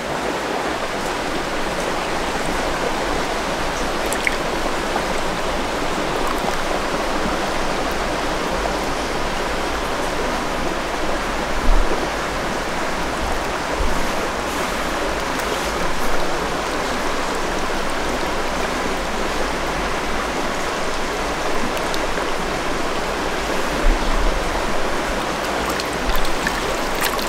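Small creek running over rocks: a steady rush of flowing water, with a few brief low bumps.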